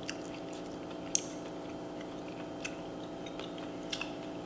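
Close-miked chewing of a mouthful of soft food, with small wet mouth clicks and smacks and one sharper click about a second in.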